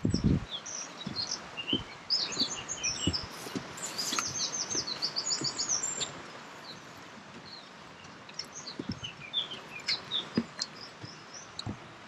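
Small songbirds chirping, with a quick run of repeated high notes partway through. Under them, irregular low thuds of footsteps on wooden footbridge planks, the heaviest one right at the start.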